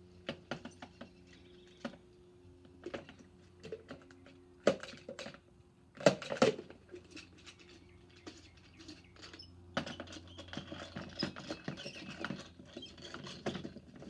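Green plastic hand-crank mixer from a toy slime kit clicking and rattling as it is turned and handled, with a few sharper knocks about five and six seconds in and a busy run of rapid clicking near the end. The mixing mechanism is broken, which the child says herself.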